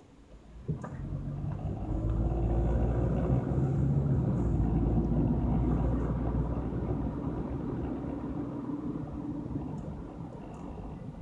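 Car engine and low road rumble heard from inside the cabin as the car pulls away from a stop. The sound comes up sharply about a second in, holds for several seconds and then gradually eases as the car settles into coasting.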